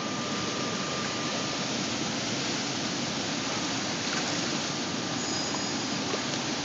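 Steady rushing noise of wind and choppy water breaking along the shore, with no clear pitch or rhythm.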